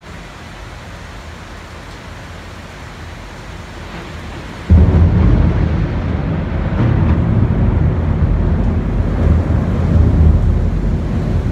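Heavy rain falling steadily, then about five seconds in a sudden loud thunderclap from a close lightning strike, its deep rumble running on through the rain.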